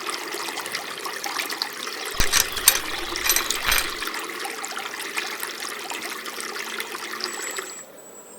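Water pouring and trickling steadily, with a few knocks about two to four seconds in; the pouring stops shortly before the end.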